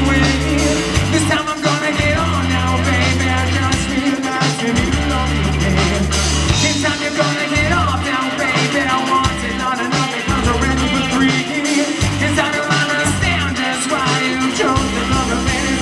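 Rock band playing live: a male singer sings over electric guitar, bass guitar and a drum kit, with long held bass notes underneath.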